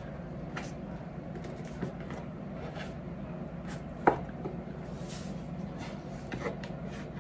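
Cardboard Louis Vuitton gift box being handled and opened, the outer box lifted off an inner jewelry box: scattered light taps and scrapes, with one sharper knock about four seconds in, over a low steady hum.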